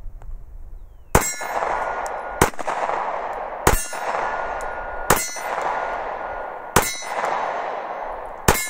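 Six 9 mm shots from a Glock 43 subcompact pistol, fired slowly about a second and a half apart. Each shot is followed by a ringing tail of about a second.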